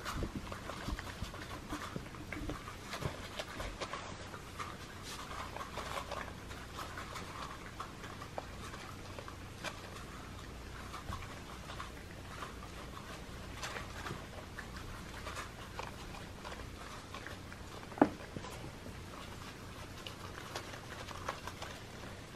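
Several cats crunching dry kibble: a patter of small, irregular crunches and clicks, with one sharp click late on.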